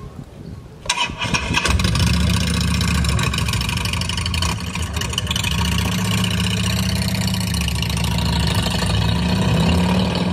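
An amplified engine-like rumble played through the field's speakers as the opening of a marching band show. It comes in suddenly about a second in and settles into a loud, steady low drone with a rough, busy upper layer.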